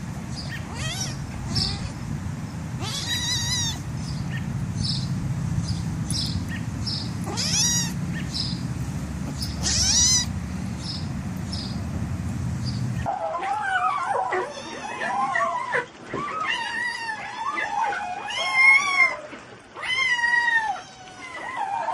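A steady low hum with short high chirps about twice a second, then, about thirteen seconds in, a cat meowing over and over in long, wavering calls.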